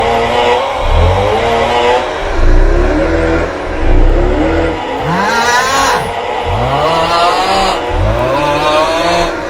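The 'Aughhhh' snoring meme sound: a drawn-out, wavering 'aughhh' snore-groan repeated about once a second, loud and bass-boosted. Through the first half each one carries a deep booming bass; the later ones are pitched higher without it.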